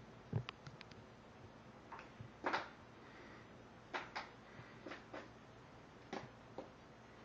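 Cats playing with a foil-tipped string toy: about a dozen soft taps, knocks and scuffs in an irregular scatter, with a heavier thump near the start and another about two and a half seconds in.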